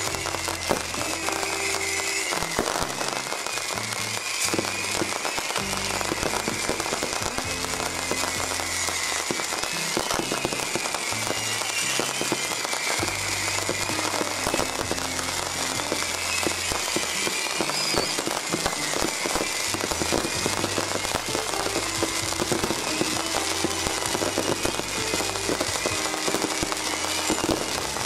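Firecrackers and fireworks going off nonstop in a dense, continuous crackle, with music playing underneath.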